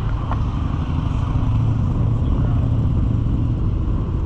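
A motor vehicle's engine running close by, a low rumble that is loudest about halfway through.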